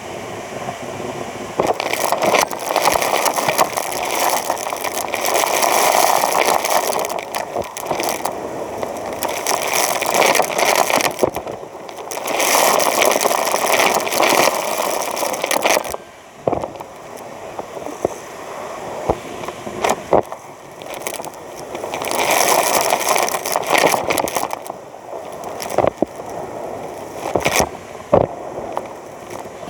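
Hetty vacuum cleaner in use: a rushing, scraping noise that swells and fades in strokes of a few seconds each, with scattered clicks and knocks between them.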